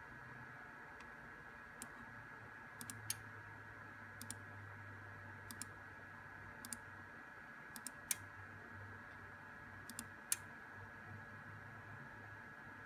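Computer mouse button clicks, single and in quick pairs every second or two. A steady faint high whine and a low hum from the running equipment sit underneath.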